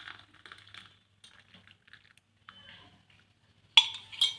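Tea poured into a mug, heard as a faint trickle with light clicks, then two sharp, ringing clinks of dishes near the end.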